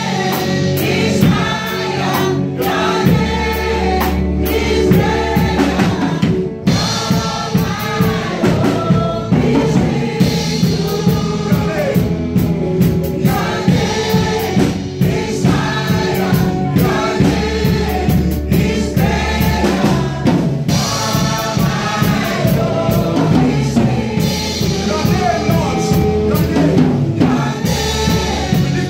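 Gospel worship group singing live: several voices on microphones singing together in harmony over amplified guitars, low bass notes and a steady beat.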